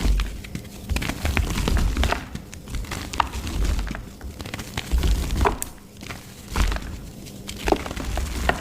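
Mud being crushed: irregular crunching and cracking with dull low thuds.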